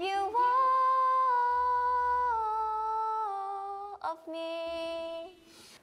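A young woman singing unaccompanied: a long, high held note of about four seconds that eases slightly lower partway through, then a shorter, lower note.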